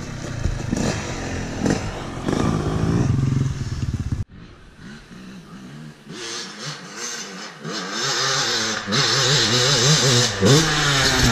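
Dirt bike engines running. After a sudden cut about four seconds in, a dirt bike's engine revs up and down repeatedly as it is ridden along the trail, getting louder in the last few seconds.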